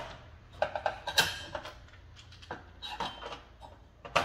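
Sharp clicks and clatter of small plastic and metal electrical-board parts being handled and fitted, several in quick clusters, the loudest about a second in.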